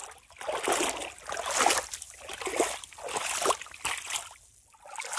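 Footsteps splashing through shallow water and wet mud, about one step a second.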